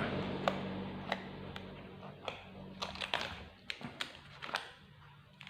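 Irregular light clicks and taps, about a dozen spread unevenly, from a new phone and its box being handled, with a low hum fading out in the first couple of seconds.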